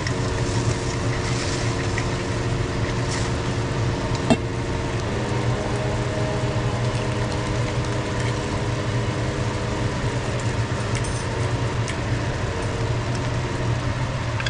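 Butter-and-honey sauce sizzling and bubbling in a wok over a steady, low mechanical hum. A single sharp click about four seconds in.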